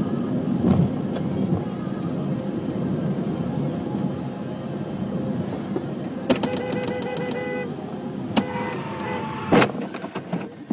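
Car driving on a rain-wet road, heard from inside the cabin: steady low road and engine rumble. A few sharp knocks cut through it, and a held tone with overtones sounds for about a second and a half just past the middle.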